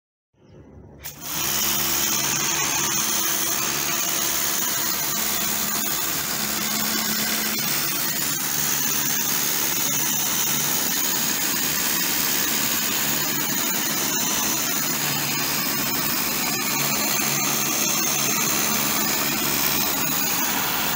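Kärcher high-pressure washer running steadily: a motor hum under the hiss of the water jet blasting a textured wall. It starts suddenly about a second in.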